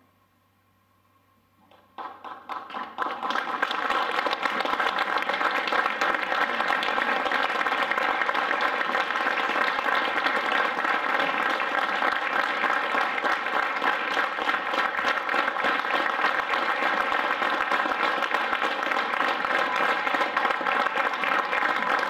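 Theatre audience applauding: scattered claps start about two seconds in and quickly swell into steady, dense applause.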